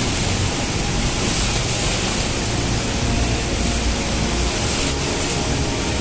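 Large waterfall: a steady, unbroken rush of heavy white water pouring over and churning through rock.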